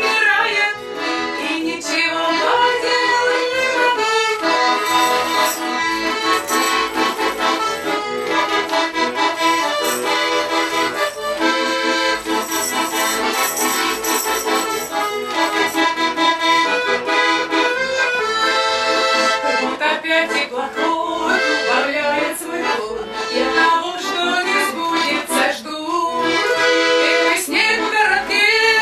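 Russian garmon (button accordion) playing an instrumental folk tune with melody and accompanying chords, without singing.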